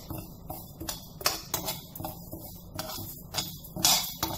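A spoon stirring moong dal as it dry-roasts in a nonstick frying pan: irregular scraping and clicking of the spoon against the pan and the rattle of the dry lentils, several strokes a second, loudest near the end.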